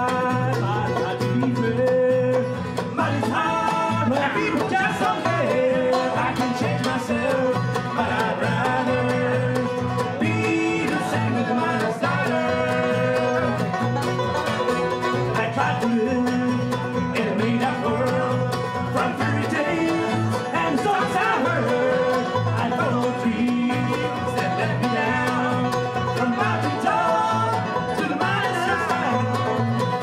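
Acoustic bluegrass band playing live: banjo, mandolin, acoustic guitar and upright bass.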